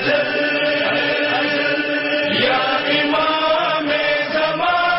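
Chanted vocal music: a voice holding long notes that slide slowly up and down.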